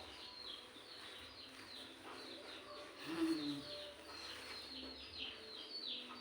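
Small birds chirping in the background: a steady run of short, high chirps, each sweeping downward, several a second. A brief lower-pitched sound about three seconds in is the loudest moment.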